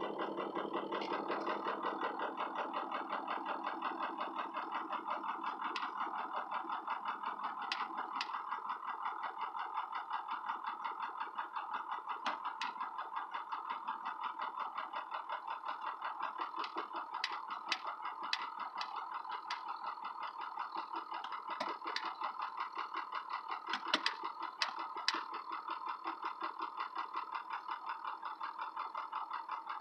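Ford 6.0 Powerstroke V8 turbo-diesel idling roughly with a regular pulsing beat, its pitch not rising: it does not respond to the accelerator pedal, a no-power fault that sets no trouble codes. A few sharp clicks sound over it.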